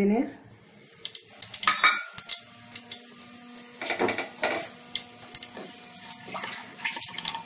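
Mustard seeds going into hot oil in a pressure cooker, with irregular sharp clicks and metal clinks of utensils against the pot as the seeds begin to crackle.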